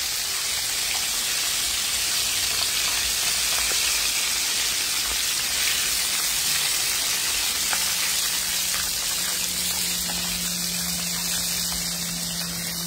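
Breaded chicken pieces deep-frying in a skillet of hot olive oil: a steady sizzle with small scattered crackles.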